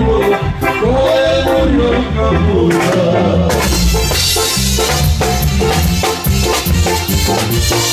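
Loud live Mexican regional band music: a steady bass and a wavering melodic lead, with brighter percussion coming in about halfway through.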